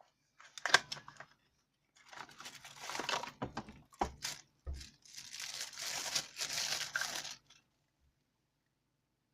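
Crinkling and tearing of plastic or paper being handled: a short burst about half a second in, then a longer stretch from about two seconds in that stops near the end, with two soft knocks in the middle.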